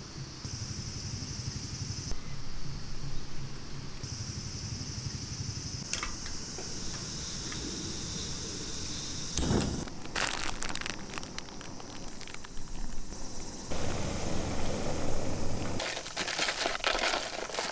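Camp cooking on a gas canister stove: crinkling and clattering handling noises, with sharp clicks in places, broken up by abrupt changes in the background.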